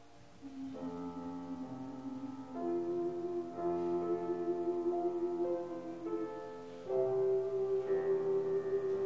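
Ocarina ensemble playing a slow hymn tune in harmony, several pure, flute-like tones held together in long notes. The chord changes every second or two, and the playing grows louder about seven seconds in.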